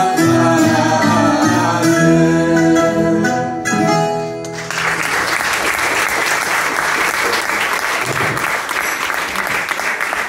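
A live acoustic song, a woman singing over plucked string instruments including guitar, comes to its final held notes and ends about four and a half seconds in. The audience then breaks into steady applause.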